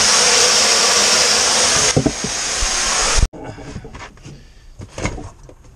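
Loud, steady hiss of water spraying from a broken, freeze-split copper water line. It cuts off abruptly about three seconds in, followed by faint knocks and clatter of tools being handled.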